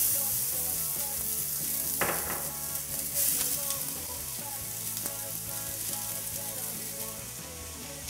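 Diced onion, celery and carrot (a mirepoix) going into hot olive oil in a stainless steel sauté pan: a loud sizzle that flares again as more vegetables go in about two and three seconds in, then settles to a steady frying hiss.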